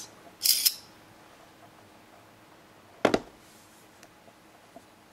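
Handling of a touchscreen phone while a photo is taken: a brief soft hiss about half a second in, then one sharp click about three seconds in, over quiet room tone.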